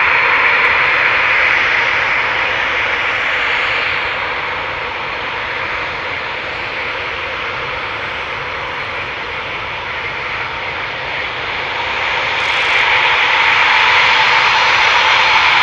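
The twin Eurojet EJ200 turbofans of a Eurofighter Typhoon whining steadily at low power as the jet taxis onto the runway. The whine drops a little in the middle and grows louder near the end as the jet turns toward the listener.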